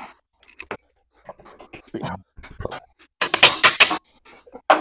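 Scattered clinks and knocks of steel bolts and hand tools being handled, with a louder burst of rattling about three seconds in.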